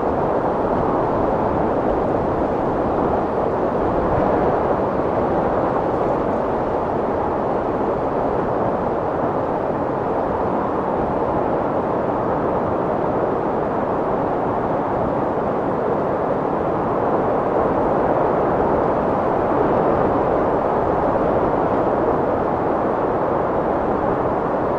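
Strong wind blowing in a steady, even rush, with only slight swells and no gusting pattern.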